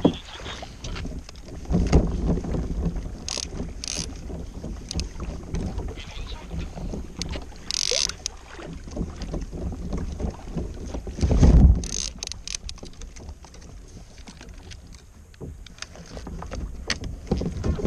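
Wind buffeting the microphone and sea water slapping against a plastic fishing kayak, a steady rumbling hiss, with scattered sharp clicks and knocks and a louder low gust about eleven seconds in.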